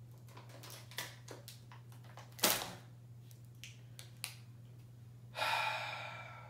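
Foil bag of cotton candy crinkling and crackling as it is handled and pulled open: scattered sharp crackles, the loudest a sharp crack about two and a half seconds in, then a longer sound near the end that fades over about a second.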